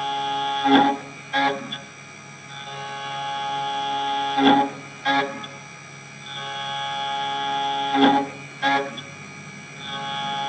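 Background music: a sustained plucked-string chord swells, then breaks into two sharp accents, a phrase that repeats about every three and a half seconds.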